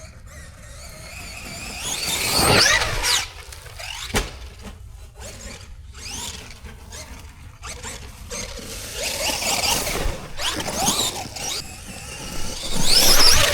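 Traxxas Maxx RC monster truck's electric motor whining in rising and falling sweeps as it speeds up and slows. It is loudest twice, about two seconds in and near the end, with a sharp knock about four seconds in.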